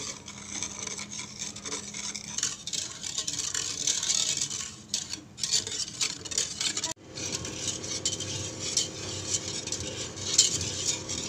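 Wire balloon whisk stirring chocolate pudding mix in a stainless-steel saucepan: rapid scraping and rattling of metal wires against the pan. There is a short lull about five seconds in and a break about seven seconds in, after which the whisking starts again.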